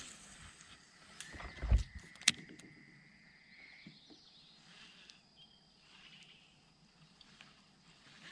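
Handling noise in a small fishing boat: a low knock against the hull and a sharp click, over a thin steady whine lasting about two and a half seconds, then near quiet.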